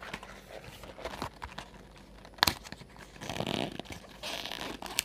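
Hands prying and tearing at the glued flap of a cardboard box, with small clicks and scrapes, one sharp snap about two and a half seconds in, and two longer rustling stretches near the end.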